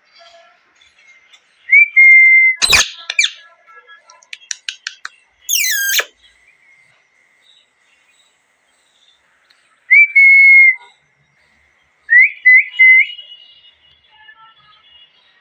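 Parrot calling in loud, short whistled notes, each rising quickly then held, with a harsher rising screech in between. A sharp snap and a quick run of clicks come between the calls.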